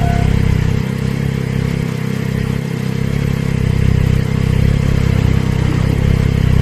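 Motor vehicle engines running close by, a loud steady low rumble.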